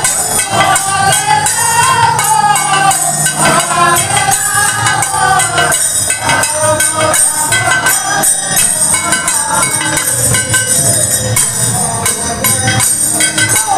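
Bengali Harinam kirtan music: khol barrel drums and jangling hand cymbals keep up a steady, dense rhythm. A voice sings a wavering line over them for the first few seconds.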